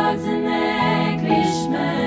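Four-part SATB choir singing a cappella in close harmony, moving through held chords.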